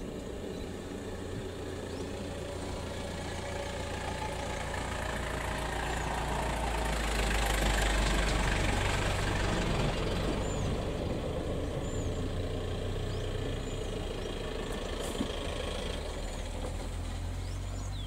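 A vehicle engine idling steadily: a low hum that swells a little around the middle.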